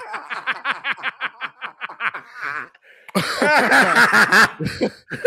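Men laughing: about two seconds of quick, rhythmic laughter pulses, then, after a brief pause, a louder burst of laughter.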